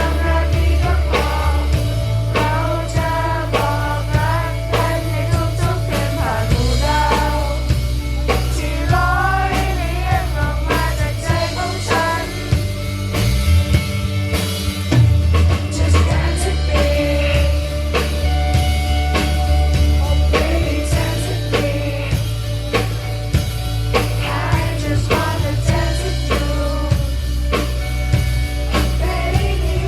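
A live band playing a rock song: steady bass and drums under guitar, with a voice singing melodic lines in places.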